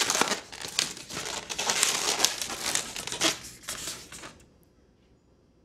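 A long latex twisting balloon being twisted and handled, the latex rubbing against itself and the hands in quick, noisy scrapes as the monkey's back legs are formed. The scraping stops about four and a half seconds in.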